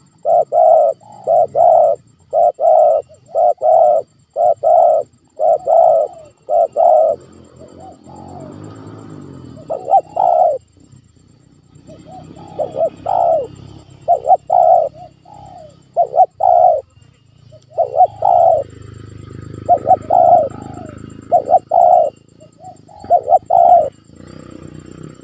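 Spotted dove cooing: runs of short coo notes repeated about twice a second, broken by a few brief pauses.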